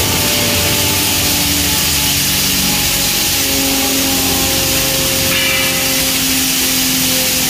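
Hammer mill (pulverizer) grinding maize kernels fed into its hopper: a loud, steady hiss over a machine hum, with a few tones that waver slowly in pitch.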